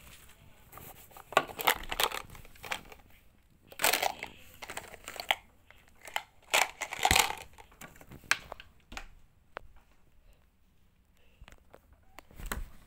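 Rustling, crinkling and knocking from packaging and cloth handled close to the microphone. It comes in irregular bursts, loudest in the first half, then thins to scattered clicks after about eight seconds.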